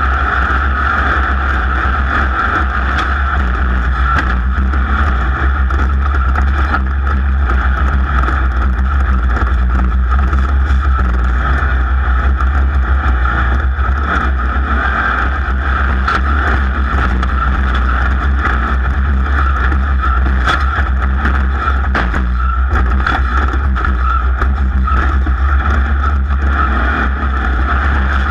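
Off-road race car's engine running steadily at speed, with a deep constant rumble and wind noise, and occasional sharp knocks.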